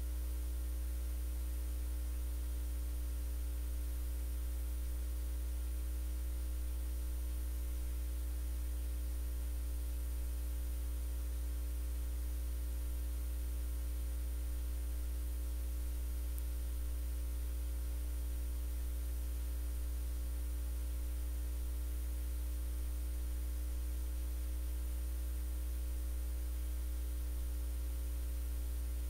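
Steady low electrical hum with a few faint steady tones and a light hiss, unchanging throughout: the recording's background noise, with no speech.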